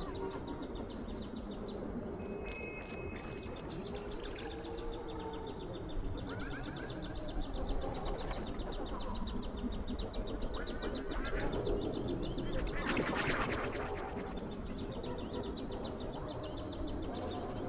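Outdoor ambience of birds chirping and calling over a steady low rumble. A brief louder rushing sound rises and falls about thirteen seconds in.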